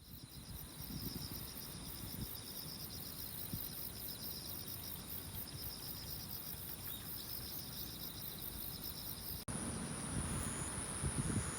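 Insects chirping in rapid pulsed high trills over a low, uneven rumble. About two-thirds of the way through, the sound switches abruptly to a steady high buzz with short, evenly spaced high notes.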